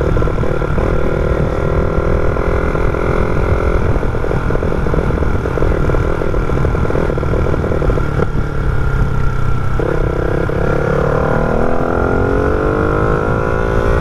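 Small motorcycle engine running under way. Its note holds steady, drops about eight seconds in, then rises steadily from about ten seconds as the engine revs up in gear.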